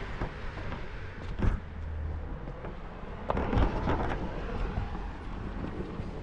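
Street ambience of road traffic: a steady low rumble with a sharp knock about a second and a half in and a louder burst of noise around three and a half seconds in.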